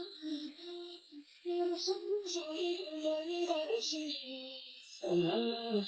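A high, light voice singing a melody in short phrases, with brief pauses about a second in and near the end.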